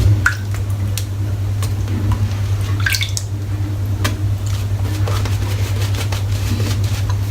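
Silvertip badger shaving brush working up lather, with a stream of short wet squelching strokes. A steady low hum sits underneath.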